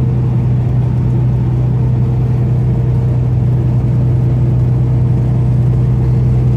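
Steady drone of a truck at highway speed heard from inside the cab: an even engine and road hum with a strong low tone and a fainter higher one, slightly louder near the end.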